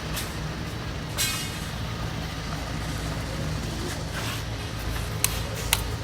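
Turbo-diesel car engine idling steadily. There are two short hisses, one about a second in and one past four seconds, and two sharp clicks near the end.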